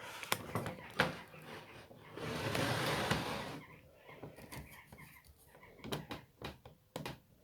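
A petrol strimmer being handled on a bench: a string of sharp clicks and knocks, with about a second and a half of rough rustling noise a couple of seconds in.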